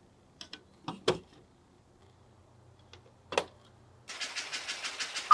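Plastic toy train track pieces clicking and knocking as they are set onto plastic block pillars: a few sharp clicks in the first three and a half seconds. About four seconds in, a battery-powered toy train starts running, a steady rapid clatter.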